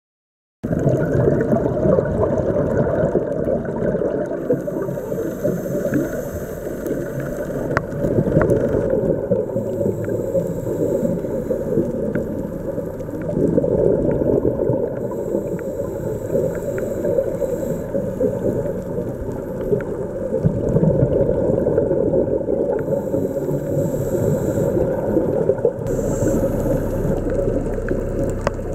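Underwater sound picked up by a diving camera: a steady, dull low rumble of water, with a diver's exhaled regulator bubbles hissing and gurgling every few seconds.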